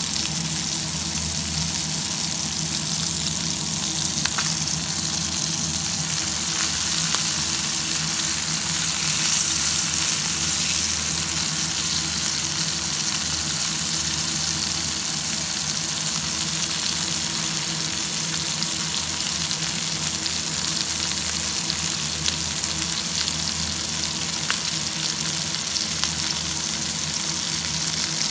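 Spice-coated fish pieces shallow-frying in oil in a pan: a steady sizzle with a few small pops.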